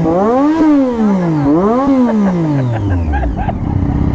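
Triumph Daytona 675's inline three-cylinder engine revved twice in quick throttle blips, the pitch rising and falling each time, then dropping back to a steady idle about three seconds in.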